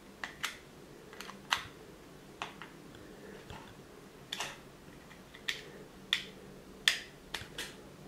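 Sharp plastic clicks and taps of USB plugs being pushed into sockets and a USB power meter and power bank being handled, about a dozen clicks at irregular intervals, the loudest about a second and a half in and near the end.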